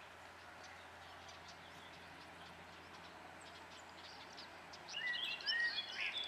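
Songbirds chirping and singing over a steady, faint background hiss. The birdsong gets louder and busier about five seconds in.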